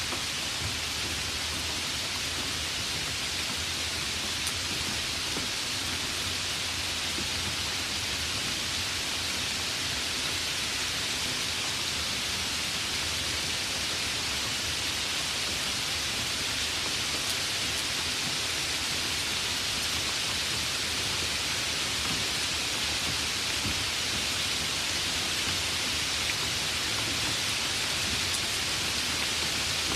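Heavy rain falling steadily, a dense even hiss of many drops.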